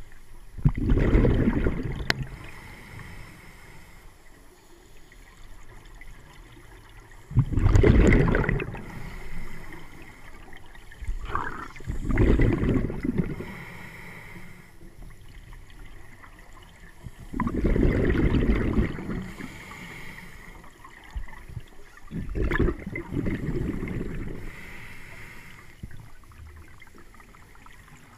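Scuba regulator exhaust: gurgling bursts of exhaled bubbles, heard underwater, five times a few seconds apart with the diver's breathing.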